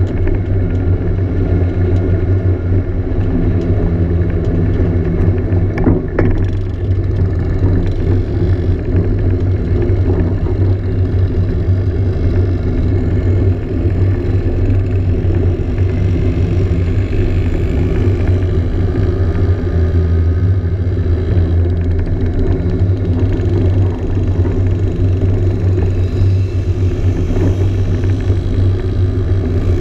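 Onboard sound of a scooter engine running steadily at an even cruising speed, a continuous low drone. A brief click sounds about six seconds in.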